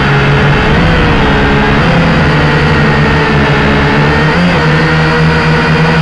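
Syma X5C quadcopter's small electric motors and propellers whining steadily, heard close on the craft, with the pitch briefly wavering up and back about a second in, near two seconds and again past four seconds.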